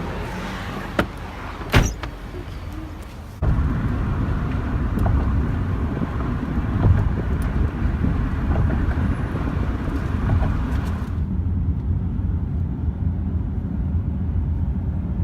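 Low, steady rumble of motor traffic, with two sharp clicks in the first two seconds and a sudden jump to a louder, heavier rumble about three and a half seconds in.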